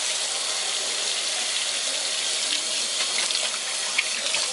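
Water running steadily from a tap into a sink, with a light click about four seconds in.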